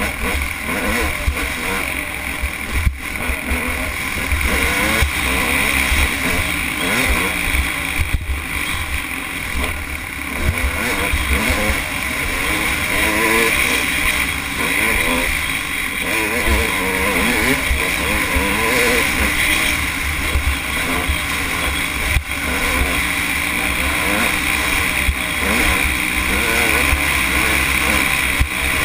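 Dirt bike engine running under way, its pitch wavering as the throttle is worked, with wind buffeting the bike-mounted camera's microphone.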